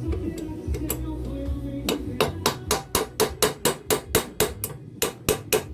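Rapid hammer blows, about three to four a second, starting about two seconds in with a short pause near the end: knocking the worn shaft bearing out of a Makita M2300 miter saw's housing.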